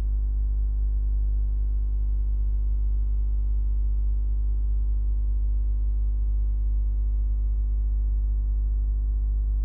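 A steady low hum with a stack of faint buzzing overtones, unchanging in pitch and level. No stirring, scraping or sizzling stands out above it.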